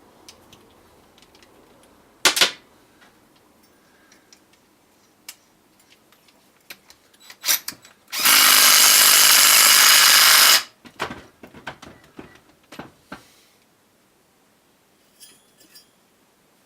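DeWalt DCF813 10.8 V 3/8-inch cordless impact wrench: a short blip of the trigger about two seconds in, then a steady run of about two and a half seconds. Clicks and knocks of tool and parts being handled come between.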